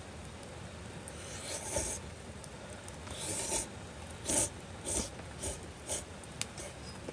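A person slurping udon noodles: a run of short sucking hisses, the first two longer, then shorter ones about twice a second.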